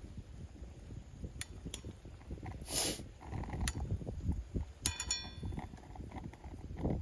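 Chestnut-wood campfire crackling, with scattered sharp pops and a short hiss near the middle. About five seconds in, a single metallic clink rings briefly.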